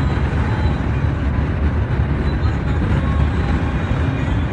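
A car driving through a sandstorm: a steady, deep rumble of road and wind noise.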